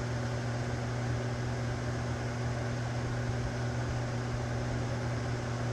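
Steady low electrical hum with a constant hiss underneath, unchanging throughout.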